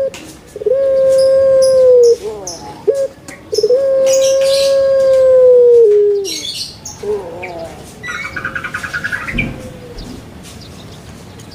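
Puter pelung (Barbary dove, Streptopelia risoria) singing its long drawn-out coo: two loud notes held at a steady pitch for a second or two each, each ending in a falling glide, with short gliding notes between and a fainter held note afterwards. Small birds chirp high in the background, with a brief rapid trill near the end.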